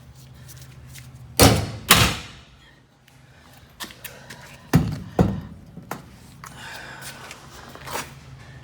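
Hammer knocking against a hollow metal door frame to seat it: two loud pairs of knocks, the second pair about three seconds after the first, with a few lighter taps between.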